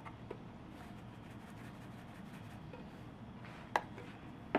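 Quiet kitchen room tone with a steady low hum, broken by a few short, sharp taps, the loudest two near the end.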